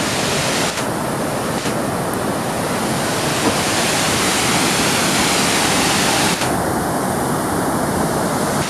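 Triberg Waterfalls' cascade: a loud, steady rush of falling water, with no let-up.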